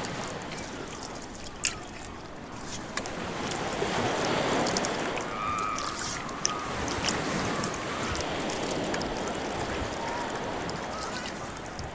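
Rowboat being rowed, oars splashing and dipping in the water over waves washing on the shore, with occasional sharp knocks. From about four seconds in, faint voices of people on a beach join in.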